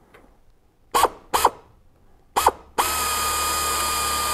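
Sioux Tools pneumatic air drill: three short trigger blips that spin up and die away, then, about three seconds in, a steady high whine as it runs at full speed, drilling a hole through the aluminium flaperon bracket and wing rib.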